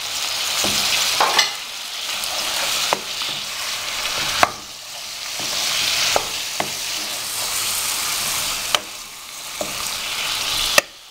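Chicken pieces, green peas and sliced carrots sizzling in oil in a stone-coated frying pan while being stirred with a wooden spoon, sautéing with the spices just added. The sizzle swells and fades with the stirring, with a sharp knock of the spoon against the pan every second or two. It stops suddenly near the end.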